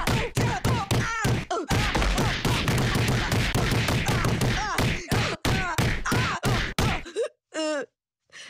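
A fast flurry of cartoon punch sound effects, blows landing one after another for about seven seconds, with short pained yelps among them. Near the end the beaten boy lets out a brief moaning groan.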